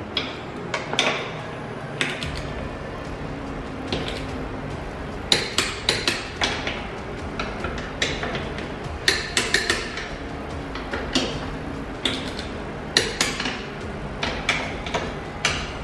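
Socket ratchet wrench clicking in short quick runs as the tire carrier's bolts are tightened, with metal clinks between the runs.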